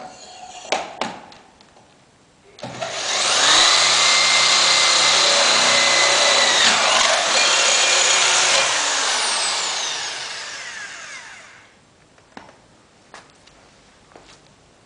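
Handheld corded electric drill running at full speed as it cuts a hole in the steel stock exhaust of a Yamaha XVS1300, a loud steady whine for about six seconds. The whine then falls in pitch as the motor spins down after the trigger is released. A few sharp knocks come before it starts.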